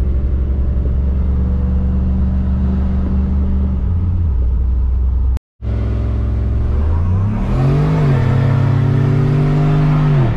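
Boosted truck's engine heard from inside the cab, running steadily under way. After a brief break in the sound about halfway through, the engine revs rise about seven seconds in, hold high, then fall away at the end.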